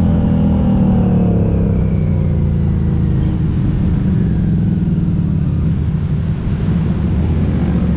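Harley-Davidson Street 500's 500 cc V-twin, fitted with an aftermarket Vance & Hines exhaust, running under way. Its note falls over the first few seconds as the bike slows, then holds on as a low, steady rumble.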